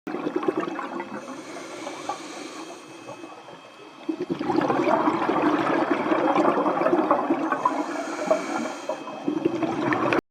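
Underwater bubble noise from a scuba diver breathing through a regulator, with exhaled bubbles rushing and gurgling. A louder, longer rush of bubbles starts about four seconds in, and a shorter one comes near the end.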